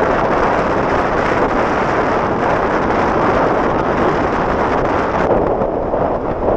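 Loud, steady wind rushing over the microphone, as from riding an electric bike at speed.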